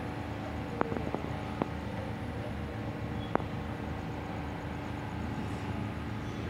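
A steady low hum, like a machine or traffic, with about five light clinks of plates and cutlery in the first half as hands reach for food.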